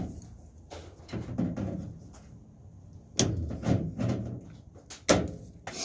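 Irregular knocks and clunks, about half a dozen over a few seconds. The two loudest, sharp ones come about three seconds in and about five seconds in.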